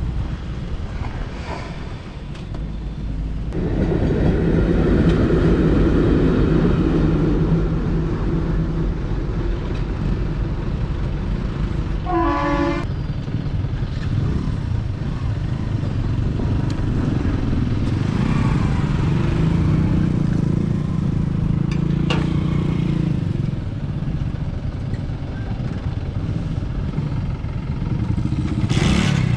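Steady vehicle engine noise that grows louder about four seconds in, with one short horn toot about twelve seconds in.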